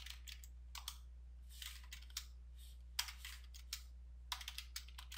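Computer keyboard typing: faint, irregular keystrokes coming in small clusters.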